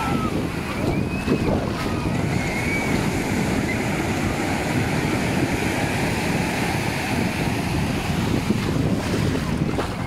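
Small waves breaking and washing up the sandy shore in a steady rush of surf, with wind buffeting the microphone.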